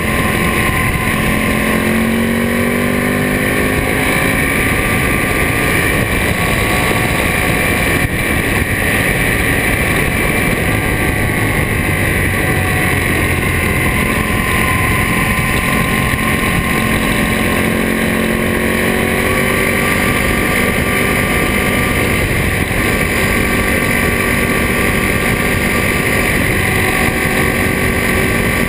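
Ducati Monster S4RS's Testastretta V-twin with a Termignoni exhaust running under load through a series of bends, its note rising over the first few seconds and then mostly holding steady, with wind rushing on the microphone.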